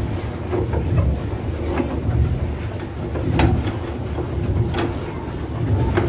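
Swan boat moving across the water: a steady low rumble with a sharp click or knock every second or so.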